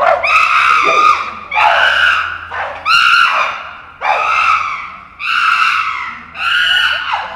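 Chimpanzees screaming: a string of about seven loud, high screams, each lasting just under a second, one after another. These are the screams of a chimpanzee fight.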